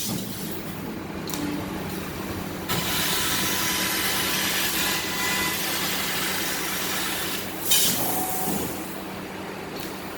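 CNC laser cutting machine running: a steady machine hum under a hiss that grows louder about three seconds in, with a short sharp burst near eight seconds.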